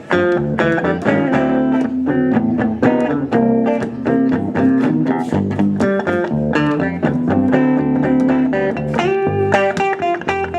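Background blues music led by guitar, with a run of plucked notes and held tones.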